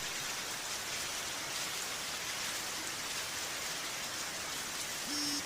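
Heavy hail falling, a steady dense hiss of stones striking the ground. A short steady electronic tone starts just before the end.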